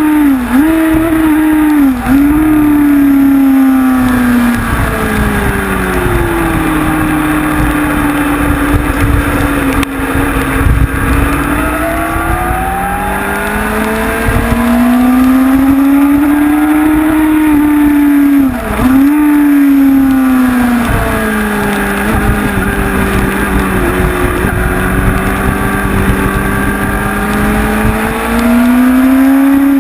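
Honda CBR sportbike's inline-four engine heard onboard at track speed, its pitch falling and rising in long sweeps as the rider accelerates and slows for corners, with quick dips of gear changes twice near the start and once about two-thirds through. Wind rush on the helmet or bike-mounted camera runs underneath.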